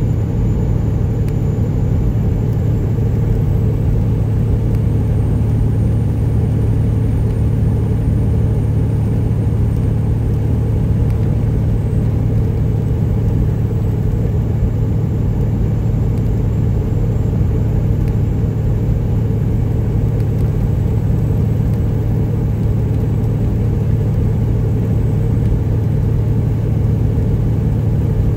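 Peterbilt 379's straight-piped Detroit Diesel Series 60 inline-six running at a steady cruise of about 70 mph, a constant low drone heard from inside the cab.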